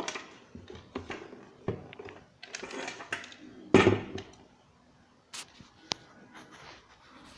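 Clunks, knocks and scuffs from a kitchen mixer grinder being handled and set down, the loudest knock a bit under four seconds in, followed by two sharp clicks.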